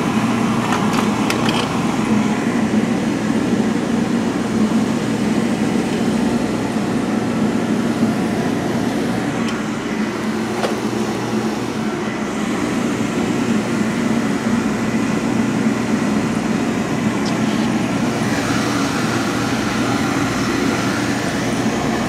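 Oil-fired Peerless boiler's burner running steadily while firing on a call for heat. There are a few light clicks near the start.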